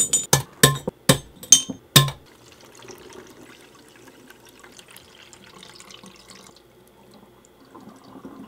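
A quick run of sharp glassy clinks and knocks, about three a second, stops about two seconds in. Faint liquid trickling follows as kombucha is poured while bottling.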